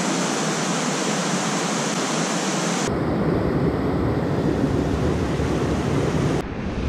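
Rushing river water pouring over a small rapid, a steady hiss. About three seconds in it changes suddenly to a duller, deeper rush with a low rumble.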